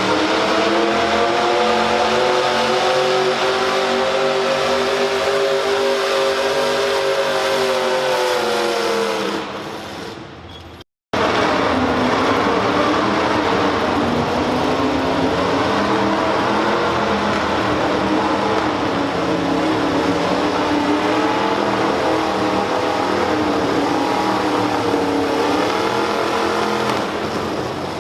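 Modified pulling tractor engine at full throttle under load during a pull, its pitch held high and then falling away as it winds off about nine seconds in. After a sudden cut, another modified runs wide open through a second pull.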